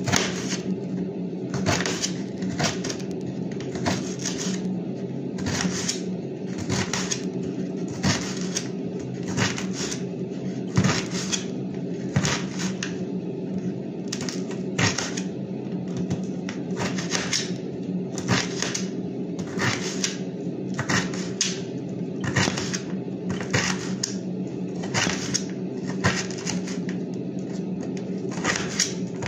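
Kitchen knife chopping vegetables by hand, each cut a sharp knock, about one to two a second in an uneven rhythm, over a steady low hum.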